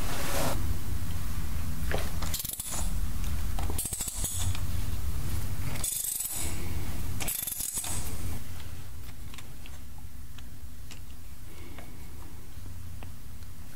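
Socket wrench ratcheting and metal clinking in several short bursts as the bolts of a Ford tractor's old vane-type hydraulic pump are loosened, over a steady low hum. The clicking stops a little past halfway and only the hum remains.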